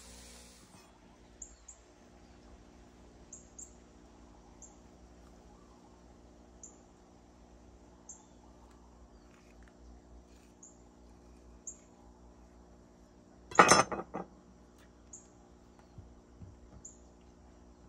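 A knife cutting through an avocado: faint small clicks, then a brief loud scraping noise about three-quarters of the way in as it is cut open. Behind it, a steady low hum and short high chirps every second or two.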